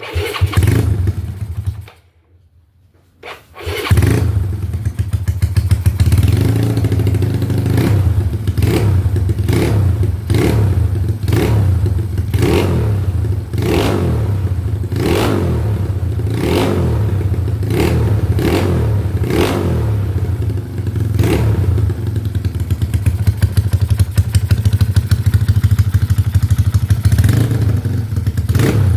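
Single-cylinder four-stroke engine of a Yamaha Mio scooter bored up to 200cc, started, dying after about two seconds, then catching again and running with short throttle blips a little over a second apart.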